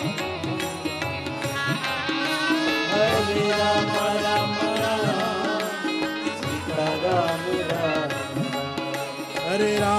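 Devotional Hindu bhajan music: a melody sung over tabla, with steady held tones underneath.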